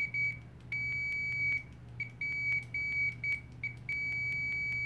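OWON OW16A multimeter's continuity beeper sounding a steady high-pitched tone as its test leads are shorted together, cutting in and out several times in short and longer stretches and ending in one long beep. Faint clicks sound throughout.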